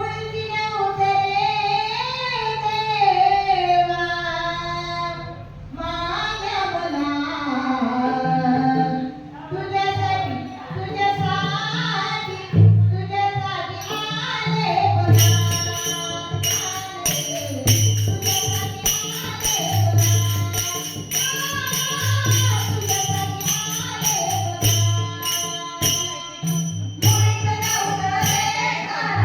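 A woman singing a Marathi gaulan, a devotional folk song to Krishna, her voice sliding between notes. About halfway through a steady percussion beat comes in under the singing, with low drum thumps and sharp high strokes.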